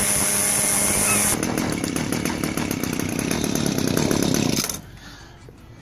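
Echo SRM-230 string trimmer's small two-stroke engine running fast, then dropping to a lower, evenly pulsing speed about a second and a half in, and cutting off suddenly near the end. The trimmer is running on its newly replaced throttle trigger.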